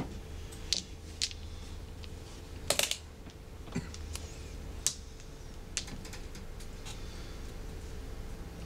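Mahjong tiles clacking as they are drawn, set down and discarded on the table: single sharp clicks about every second, with a quick double clack about three seconds in, over a low steady hum.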